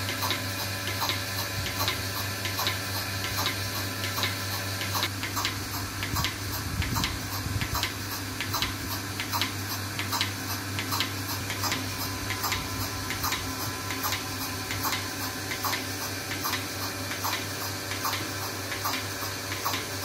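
Bucket milking machine running on a cow: the pulsator clicks in an even rhythm over the steady hum of the vacuum pump, with a hiss of air and milk drawn through the teat cups and hoses.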